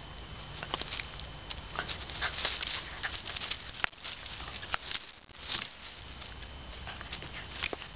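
Wire-haired dachshund digging at a burrow and tearing at twigs and roots with its teeth, giving irregular scraping, rustling and sharp snapping of soil, dry leaves and sticks.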